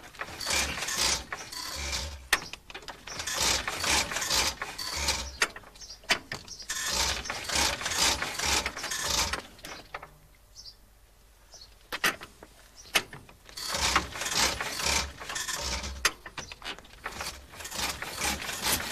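Starting handle cranking a 1902 Wolseley's engine on half compression: a mechanical clatter with low thuds, coming in repeated spells with a pause of about two seconds about halfway through, as the engine turns over without catching.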